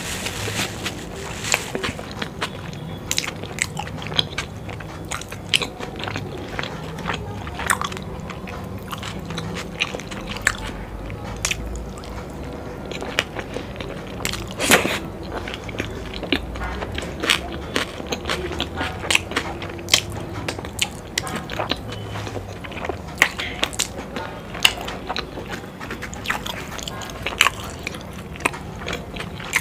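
Close-miked chewing of momo dumplings: wet mouth smacks and lip clicks, many a second, continuing with no let-up.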